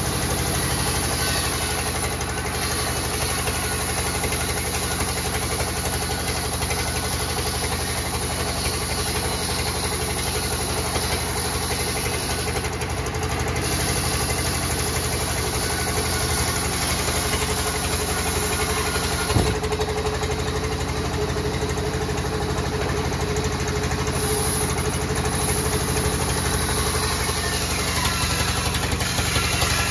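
Large sawmill band saw running steadily, its blade cutting lengthwise through a thick log slab that is being fed along the carriage. One brief sharp knock about two-thirds of the way through.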